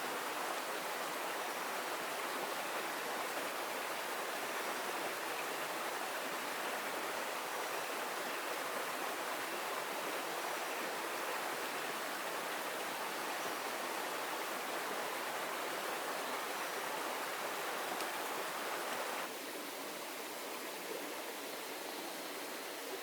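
Heavy rain falling steadily, an even rushing hiss. It becomes suddenly quieter about 19 seconds in.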